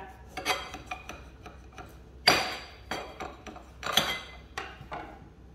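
Kitchen knife cutting a lime on a porcelain plate: a few sharp clinks and knocks of the blade against the plate, the loudest a little past two seconds in, another near four seconds.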